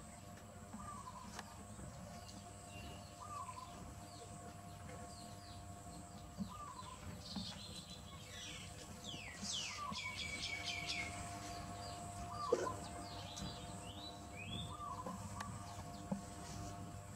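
Birds chirping: a short call repeats about every second and a half, and a run of quick high chirps and falling trills comes around the middle. Two brief sharp knocks stand out, one past the middle and one near the end, over a faint steady hum.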